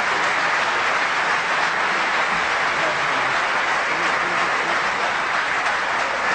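Audience applauding steadily, with a few voices calling out from the crowd.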